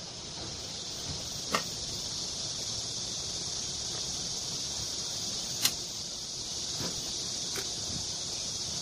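A few sharp clicks and knocks of metal engine parts handled on a workbench, the two loudest about a second and a half in and just past the middle, over a steady high-pitched hiss.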